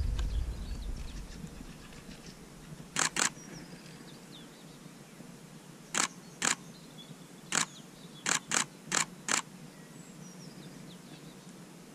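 Camera shutter firing nine times over about six seconds, some shots single and some in quick pairs a fraction of a second apart. Wind rumble on the microphone dies away over the first two seconds.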